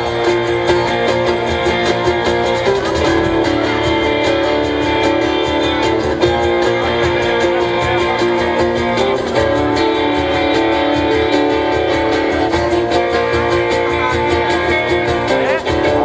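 Live rock band playing an instrumental passage: strummed acoustic and electric guitars holding chords that change about every three seconds, over drums keeping a steady beat.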